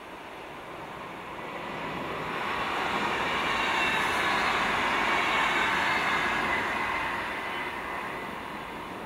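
Electric commuter train passing on the track: wheel and rail noise swells to a peak about halfway through, then fades as it draws away.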